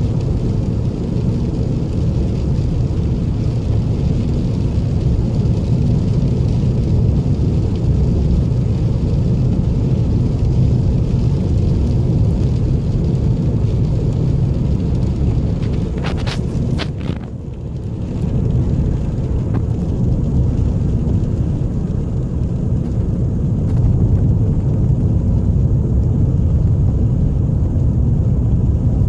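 Steady low rumble of a car's engine and tyres heard from inside the cabin while driving on a wet road, with a few brief clicks and a short dip in the noise about two-thirds of the way through.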